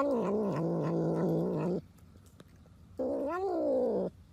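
A cat yowling in two long, drawn-out cries. The first wavers, then slides down low and is held before breaking off. The second, starting about a second later, rises and falls.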